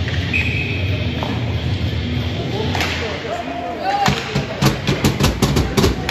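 Ice hockey game in an arena: arena music and crowd voices, then, from about three seconds in, a quick run of sharp clacks of sticks and puck on the ice and boards as play restarts.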